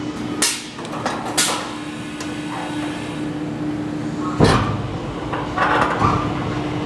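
Rebuilt Cozzini paddle mixer running in unload mode with a steady hum. Sharp metallic clunks and brief hisses come from the pneumatic discharge-door mechanism, the loudest with a heavy thud about four and a half seconds in.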